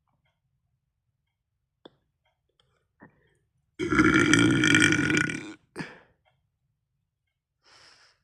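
A person's long, loud belch lasting nearly two seconds, starting about four seconds in, followed at once by a short second burst.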